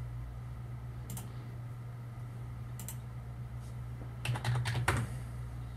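Two single clicks, then a quick run of keystrokes on a computer keyboard about four seconds in, as a password is typed into a prompt. A low steady hum runs underneath.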